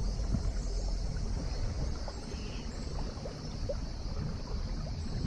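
Sailboat moving slowly through calm water: a steady low rumble with a light haze of water and wind noise, and a few faint ticks.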